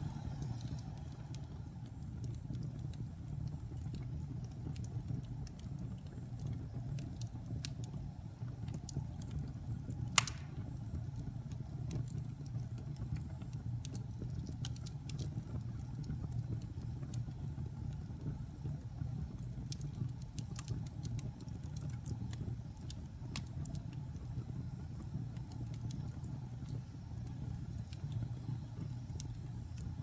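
Wood fire burning in a fireplace: a steady low rumble with scattered small crackles, and one sharp, louder pop about a third of the way in.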